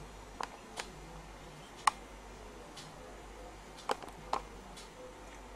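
Quiet kitchen handling noise: about five light clicks and knocks, the sharpest about two seconds in, over a low steady hum.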